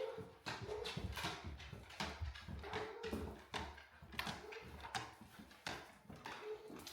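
A dog's claws clicking and tapping on a hard floor or stairs as it walks, in quick, irregular ticks.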